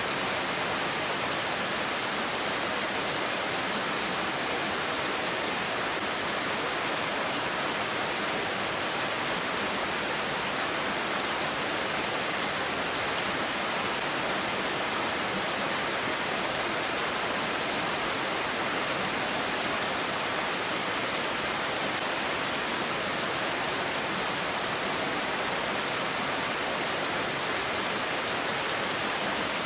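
Steady rain falling: a constant, even hiss with no single drops, gusts or other events standing out.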